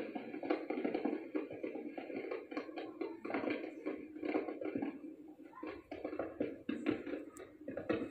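Fireworks crackling and popping in a dense, continuous stream, heard through a television's speaker in a small room.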